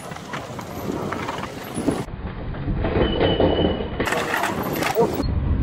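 Downhill mountain bikes rattling and knocking down a long wooden staircase, getting louder as the riders come closer, with a brief high squeal about three seconds in.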